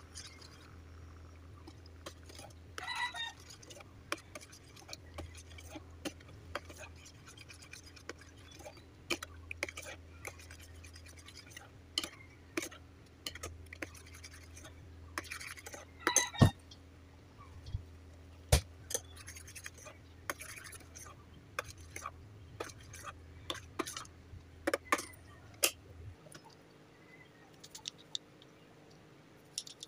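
A spoon scraping and clinking against the sides and bottom of a small stainless-steel pot while stirring a thickening sauce, in many short irregular strokes. A low steady hum sits underneath and stops shortly before the end.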